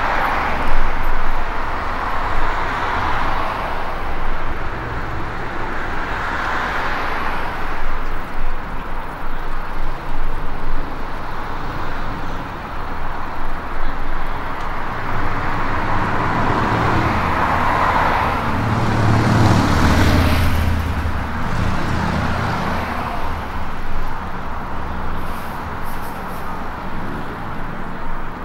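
City road traffic passing along a street. One vehicle's engine grows louder and passes close about two-thirds of the way through, then fades.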